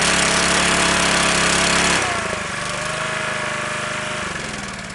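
Small portable petrol generator engine running, with a thin high whine over it. About two seconds in it drops in level and its note shifts, and it tails off toward the end.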